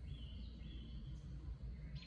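A bird sings one long, even whistled note lasting just over a second, over a steady low rumble.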